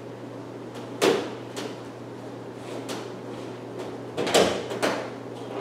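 Knocks and thuds of a person climbing into a light aircraft's aluminium cockpit and stepping onto the seat: one sharp knock about a second in, then two or three more close together near the end, over a steady low hum.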